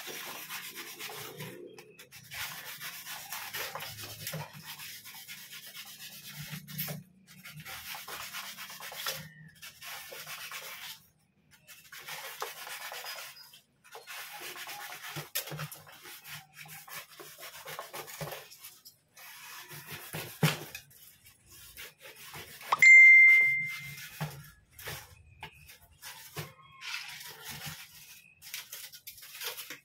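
Snap-off utility knife blade cutting through a styrofoam sheet in repeated strokes, a rasping scrape with short pauses between cuts. About two-thirds of the way through, a single loud, high-pitched ding rings for about a second.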